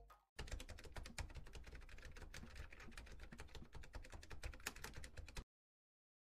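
Faint keyboard-typing sound effect: fast, irregular key clicks that cut off suddenly about five seconds in.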